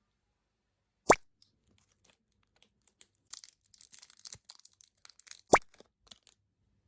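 Small plastic toy pieces being handled: two sharp clicks about four seconds apart, with a run of lighter taps and crinkling between them.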